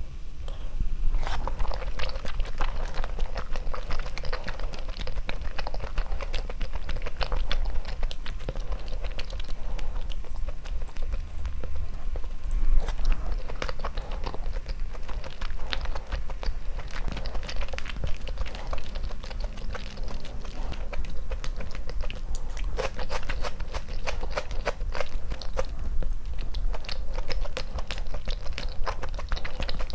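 Close-miked eating sounds: a person chewing and biting food, with a dense run of small, irregular clicks and crunches throughout.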